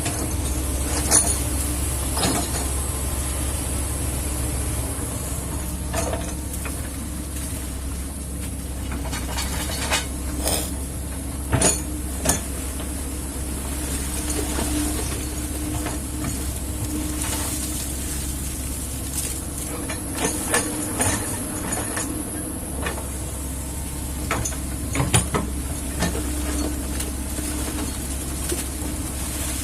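Kobelco hydraulic excavator's diesel engine running steadily under work, with intermittent sharp clanks and knocks from the machine as it digs.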